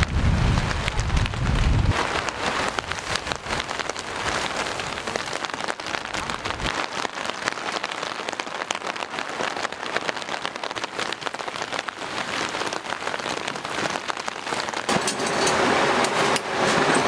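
Steady rain, its drops pattering on tent fabric. Strong wind buffets the microphone with a low rumble for the first two seconds, and near the end the rain grows louder, heard from under the tent's canvas.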